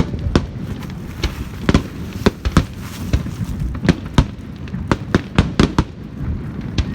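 Fireworks bursting: an irregular run of more than a dozen sharp bangs, a few each second, over a steady low rumble.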